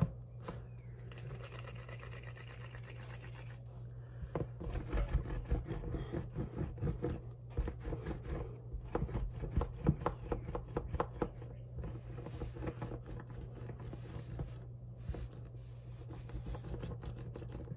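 Hands rolling a strand of oven-bake polymer clay back and forth on a countertop: soft rubbing with light irregular taps, busiest through the middle and thinning toward the end. A steady low hum runs underneath.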